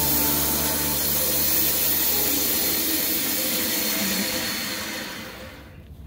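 Bandsaw running with a steady hiss over a low motor hum, fading out about five seconds in.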